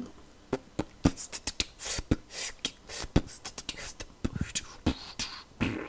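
A person beatboxing into the microphone: an irregular run of mouth clicks and short hissing 'ts' sounds.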